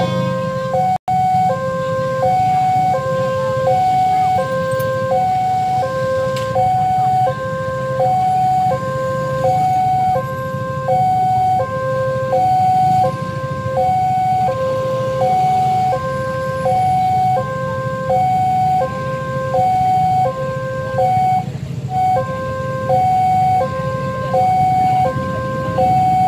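Railway level-crossing warning alarm sounding: an electronic two-note chime alternating a higher and a lower note, about one high-low pair every 1.2 seconds, warning that a train is coming. Beneath it runs a steady low rumble of idling motorcycle engines.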